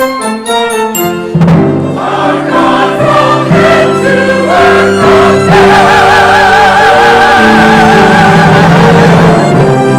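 Choir singing with orchestral accompaniment: a quick run of short detached notes at the start, then long held chords, with one held note sung with a wide vibrato from about halfway.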